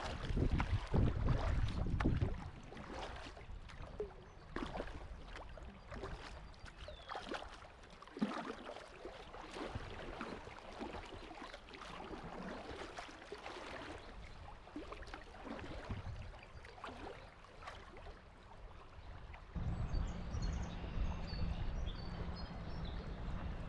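Kayak paddle strokes splashing and water rushing past the hull on moving river water. Wind buffets the microphone in the first couple of seconds and again near the end.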